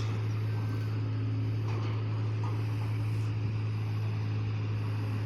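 Steady low drone of a ship's engine running at idle, unchanging throughout.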